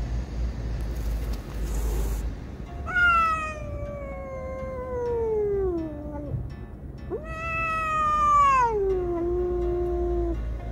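Cat yowling at another cat in a confrontation: two long drawn-out yowls, each about three seconds, sliding down in pitch as they go.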